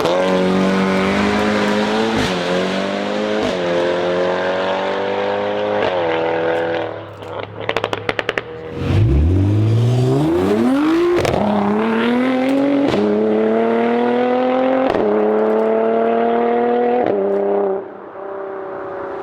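A car engine revving up through the gears: its pitch climbs repeatedly and drops back at each shift. Partway through it falls off, a rapid run of clicks sounds, and it pulls away again from a low pitch.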